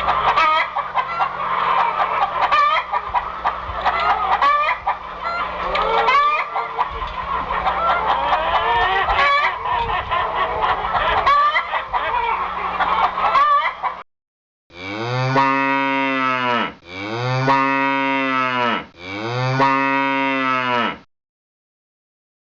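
A crowd of birds calling over one another, a dense clucking, squawking din, for about 14 seconds. After a brief break come three long, loud calls from a large animal, each about two seconds long, rising and then falling in pitch.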